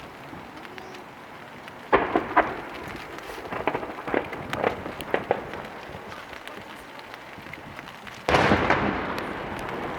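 Large aerial firework shells (8-go and 10-go) bursting: a sharp boom about two seconds in, a scatter of crackles over the next few seconds, then another heavy boom near the end that rolls on.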